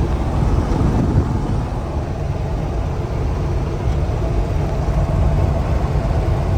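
Steady low rumble of a 1995 Chevrolet Caprice cruising, heard from inside the cabin: engine, tyre and wind noise.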